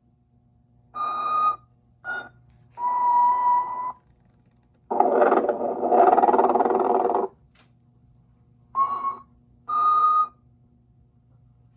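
Animated Telco Motion-ette Sleeping Santa figure playing its snoring-and-whistling routine: a short whistle, a brief chirp and a longer steady whistle, then one long rasping snore of about two seconds, then two more short whistles. A faint steady hum runs underneath.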